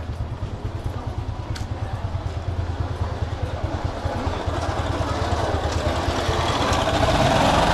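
Small motor scooter engine running, growing louder over the second half as the scooter comes close.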